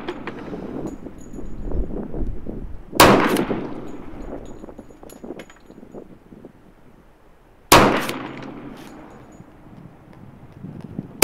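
Two pistol shots from a CZ 97B E in .45 ACP, about a second and a half and eight seconds in, each a sharp crack followed by a long fading echo.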